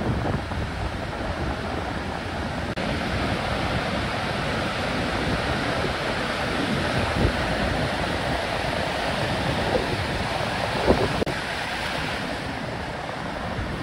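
Ocean surf breaking and whitewater washing toward the shore, a steady rush with a few brief louder swells, with wind rumbling on the microphone.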